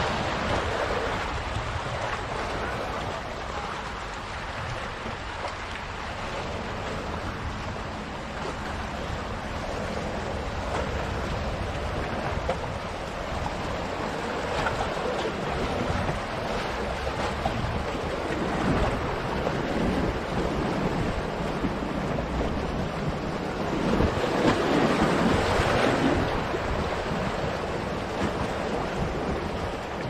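Black Sea surf washing and breaking among the boulders of a rocky shore: a continuous rush of water that swells and eases with each wave, with a louder break a few seconds before the end.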